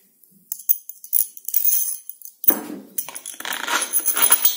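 Small metal hardware clinking and jingling: a washer and a long M8 steel bolt being handled and slid through a 3D-printed plastic part. Bright clinks in the first half give way to denser scraping and rattling in the second half.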